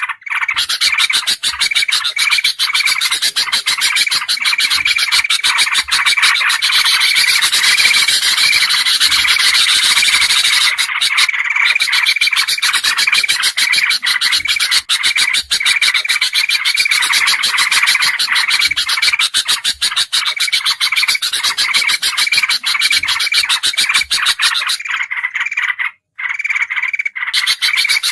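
Bird-lure recording of bulbuls (kutilang emas, sooty-headed bulbul and yellow-vented bulbul) calling noisily all at once: a dense, continuous din of overlapping chattering calls over rapid clicking, with a brief dip in the sound near the end.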